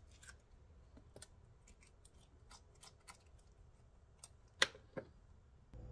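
Faint small clicks and wet scrapes of a metal spoon scooping the seeds out of Roma tomato halves, with one sharper click about four and a half seconds in.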